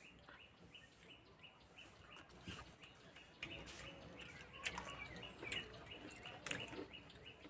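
Faint bird chirping: a short high note repeated about three times a second at first, with a few soft clicks.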